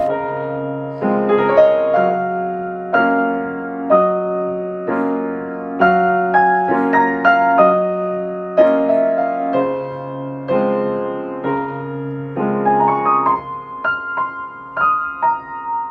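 Background piano music: slow, gentle chords and melody notes struck about once a second, fading out near the end.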